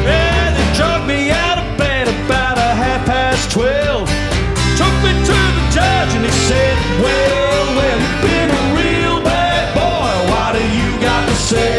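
Live band playing a country-rock song: strummed acoustic guitars, bass and drums, with fiddle and a wavering lead melody on top.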